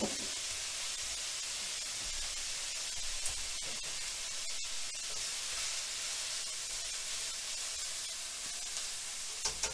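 Ground pork and cabbage filling sizzling steadily in a nonstick frying pan, soy sauce just added. A few light knocks near the end as a pan lid and spatula are handled.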